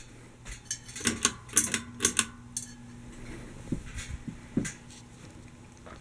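Seagull Lighting Main Street ceiling fan running with a low, steady hum, over which come a quick run of sharp clinks and taps about a second in and a few more near the end.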